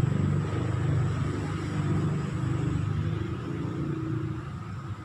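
Low engine rumble of a passing motor vehicle, fading away toward the end.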